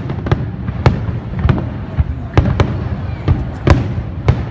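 A fireworks display: shells bursting in a quick, irregular series of about eight sharp bangs over a continuous low rumble.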